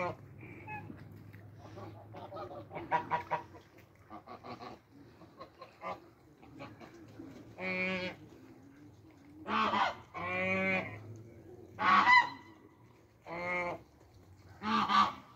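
Flock of white domestic geese honking: soft, scattered calls at first, then about six loud honks a second or two apart in the second half.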